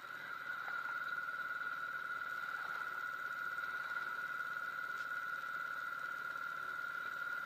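A steady high-pitched whistling tone held at one pitch throughout, over a faint hiss.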